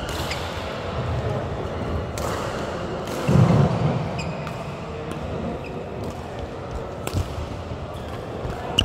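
Badminton hall between rallies: a few sharp knocks of rackets and shuttlecocks, brief squeaks of shoes on the court floor, and one louder low thud about three and a half seconds in, over echoing background chatter.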